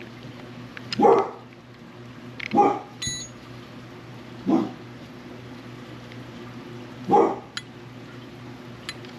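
A dog barking four times, single short barks a couple of seconds apart, over a steady low hum.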